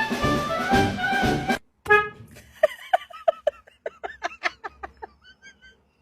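Jazzy brass-band music that cuts off abruptly, followed by a fast run of short pitched vocal sounds, several a second, that fade away.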